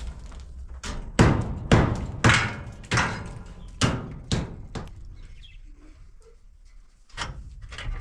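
Hammer blows while fitting a metal window frame into a concrete-block wall opening: a series of sharp knocks, roughly every half second for several seconds, then a lull and a few more knocks near the end.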